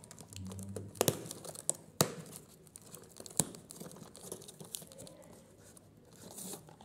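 A small cardboard box being opened by hand: flaps and the inner cardboard tray rustle and scrape, with a few sharp snaps of the card about a second in, at two seconds and after three seconds.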